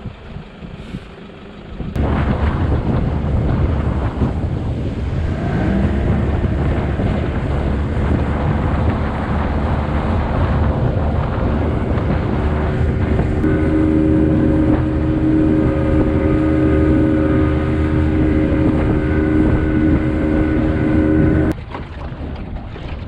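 Small boat's outboard motor running under way, with rushing wind and water noise. It starts suddenly about two seconds in, and its note climbs a few seconds later before holding steady. It cuts off abruptly near the end.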